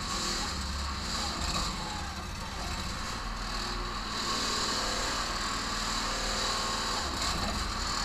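Engine of a homemade 4x4 backhoe excavator running steadily while its hydraulic arm is worked.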